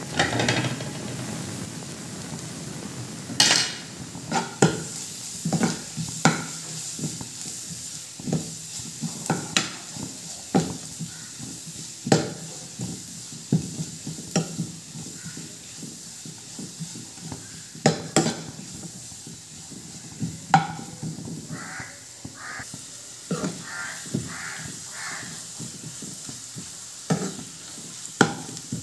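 A metal spoon stirring sliced onions and spice powder frying in a nonstick pan: a steady sizzle under irregular scrapes and sharp knocks of the spoon against the pan.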